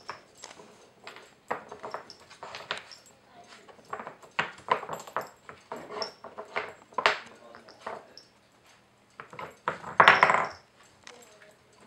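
Wooden pieces of a Nina Ottosson Dog Fighter puzzle knocking and clattering as a Norwich terrier puppy paws and noses at the pegs and sliders. The knocks come irregularly, with the loudest clatter about ten seconds in.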